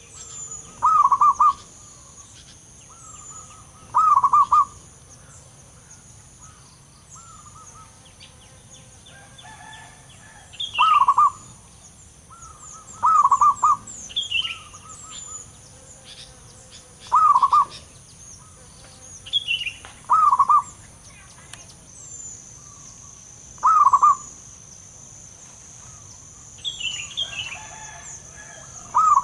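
Zebra dove cooing: short, rolling coos repeated about eight times, every two to four seconds. Fainter high chirps from other small birds and a steady high-pitched drone run underneath.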